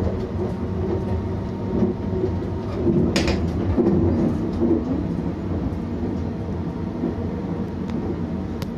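Inside the shower room of the moving 285-series Sunrise Seto sleeper train: the steady rumble of the running train, with rattles from the car body and a sharp click about three seconds in.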